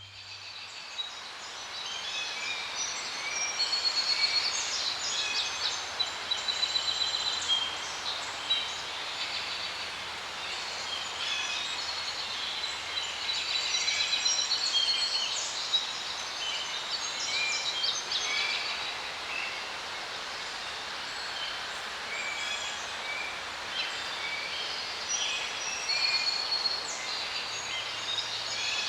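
A dense chorus of songbirds, many short chirps, trills and clear whistled notes overlapping continuously, over a faint low hum.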